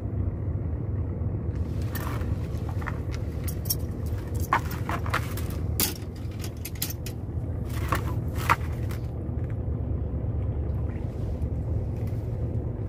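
Small boat's engine running steadily with a low drone, with a scatter of sharp knocks and scrapes in the middle stretch.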